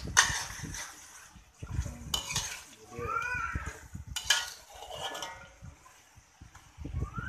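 A metal spatula scraping and knocking against an aluminium wok while chicken in a thick red sauce is stirred, in separate strokes a couple of seconds apart.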